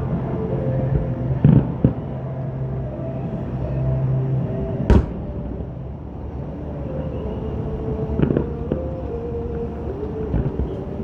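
Aerial fireworks bursting: a few sharp bangs, the loudest about five seconds in, over a continuous rumble and sustained pitched tones.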